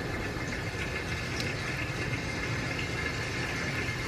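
Breaded meat cutlets sizzling in oil in a non-stick frying pan, a steady frying hiss.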